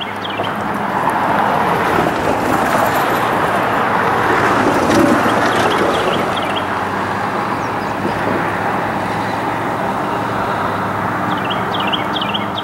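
GE Tier 4 Evolution Series demonstrator locomotive's diesel engine running steadily with a low hum as it leads an empty coal train, along with the noise of the train rolling.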